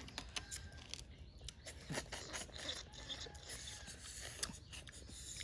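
Sucking and slurping the meat out of cooked sea snail shells: a run of short slurps and small clicks.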